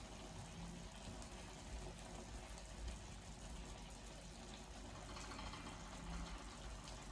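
Faint, steady sizzling and bubbling of paella rice and stock simmering in the pan as the liquid reduces.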